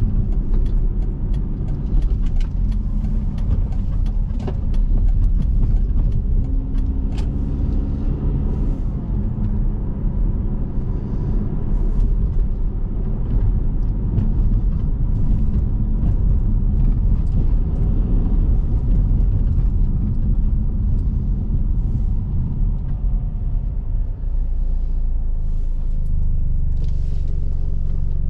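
Car driving on city streets: steady low road and engine rumble, with scattered small clicks and knocks through the first half. About 25 s in, the rumble settles into a steadier low hum.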